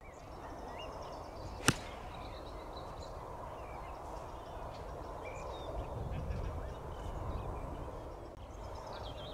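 A single sharp crack of a golf club striking a ball off the tee about two seconds in, over faint outdoor background with a few bird chirps.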